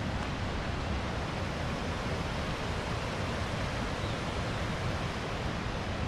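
Steady rushing of water flowing along the concrete headrace canal of a mini hydro power plant.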